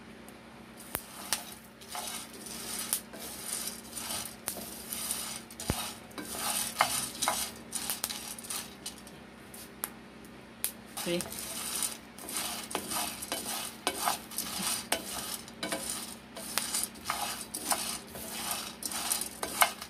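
Roasting coffee beans being stirred with a wooden spatula in a dry pan: irregular scraping and rattling of the beans against the pan in short strokes with pauses between. The beans are kept moving so they roast evenly and don't burn.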